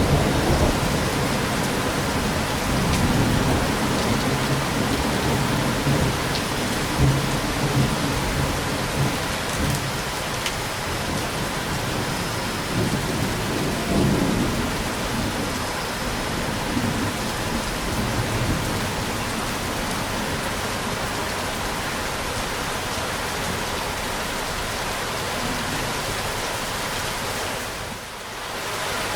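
Steady rain with thunder. Low rolling rumbles swell and fade through the first half, and the rain carries on alone later, briefly dipping in loudness near the end.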